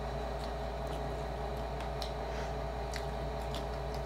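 Hands tearing and handling crispy fried pork belly, giving faint scattered crackles and clicks about every half second, over a steady background hum.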